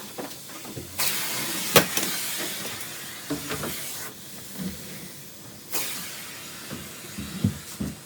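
Central vacuum air rushing in two sudden hissing bursts that fade away, with a sharp click and scattered knocks of hose handling.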